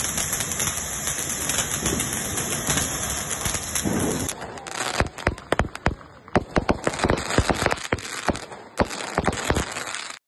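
Firework fountains hissing steadily, then from about four seconds in a rapid, irregular series of sharp cracks and pops from firecrackers bursting.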